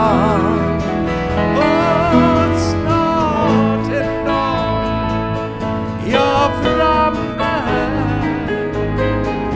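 Live country-gospel band playing a song: acoustic guitar, piano, bass and pedal steel guitar, with sliding melodic lines over steady chords.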